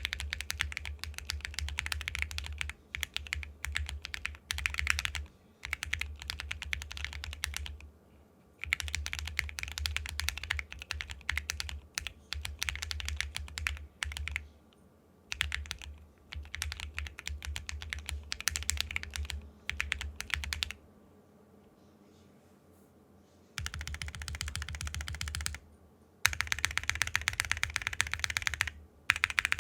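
Custom mechanical keyboard, an IV Works Av4 Claymore with an aluminium plate, Zakus switches and XMI keycaps, being typed on in fast runs of keystrokes with short pauses. A longer pause of a couple of seconds comes about two thirds of the way through.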